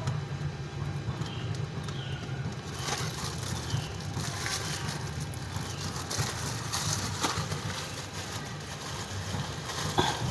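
Toyota Camry engine idling steadily, a low, even hum, with a few sharp clicks or taps scattered over it, the loudest near the end.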